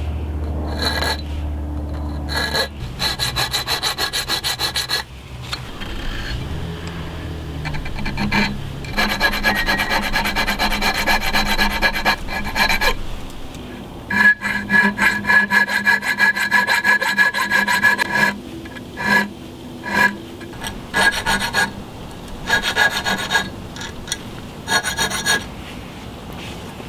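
Small round file rasping back and forth across the spine of a steel knife blade, forged from a farrier's rasp and still annealed, clamped in a vise, cutting scallop notches. The filing comes in several runs of quick strokes with short pauses between, and a high ringing note from the steel in the longer runs.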